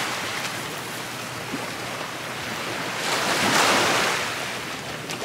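Ocean surf washing onto a sandy beach and jetty rocks, a steady rush with one wave breaking louder about three seconds in.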